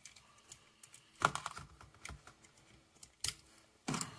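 Hard plastic parts and joints of a Transformers action figure clicking as it is handled and transformed: a handful of sharp separate clicks, the loudest a little over a second in, more near the end.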